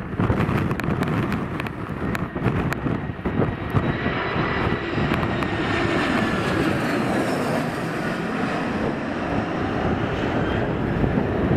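Airbus A320 jet airliner on final approach passing low overhead: engine roar and whine swell as it nears, peak about six seconds in, then fall in pitch as it goes past. Gusty wind buffets the microphone in the first few seconds.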